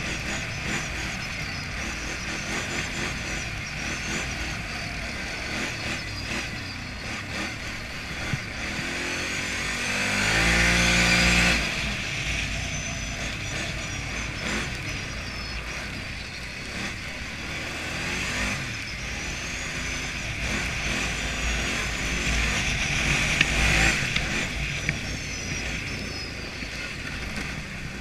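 ATV engine running while the quad rides over snow. About ten seconds in it revs up, holds loudest for a second or two, then eases back to a steady run.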